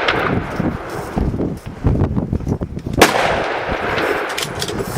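Several guns firing at once in a free-for-all: a steady scatter of shots, with one much louder, close shot about three seconds in that echoes.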